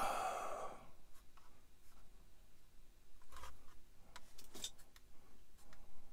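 Felt-tip marker scratching on a hard plastic model kit part as marks are drawn, with a few light clicks and rubs of the part being handled. A brief louder sound sits at the very start.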